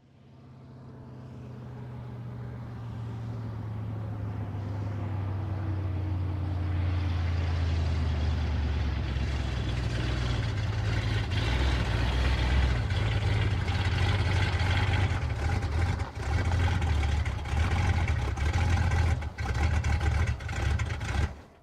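Ford Mustang engine running under load, growing louder over the first several seconds and then holding a steady loud note. Near the end the sound drops off sharply for a moment several times before cutting out.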